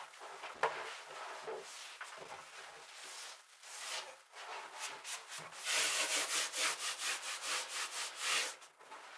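Hands rubbing and pressing EVA foam mats into place against plywood: irregular scraping and rustling, then a louder run of quick rubbing strokes, about four or five a second, for a few seconds past the middle.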